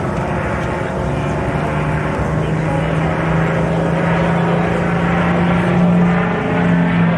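P-51D Mustang's Merlin V12 engine and propeller in a flypast, a steady engine note growing louder to a peak about six seconds in, then dropping in pitch as the aircraft passes.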